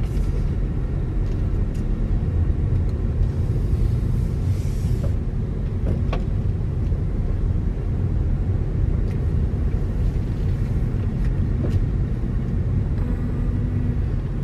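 Steady low rumble of a car's engine and tyres heard from inside the cabin as the car drives slowly. A brief hiss comes about three to five seconds in, and a few faint clicks follow.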